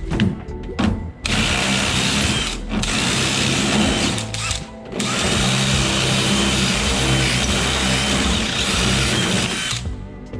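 Electric drill enlarging holes for a lock part, running in bursts with short pauses; the last run lasts about five seconds. A few light knocks come before the first run.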